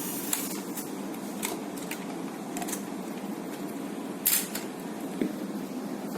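A few short clicks and scrapes from hands handling things, the loudest about four seconds in, over a steady background hum.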